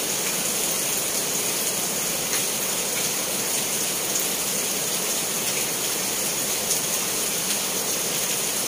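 Steady rushing water, an even hiss with a few faint ticks.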